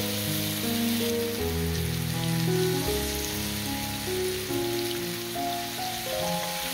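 Background music of held notes that change step by step. Under it runs a steady hiss and crackle of beef-and-vegetable rolls sizzling on a hot grill pan.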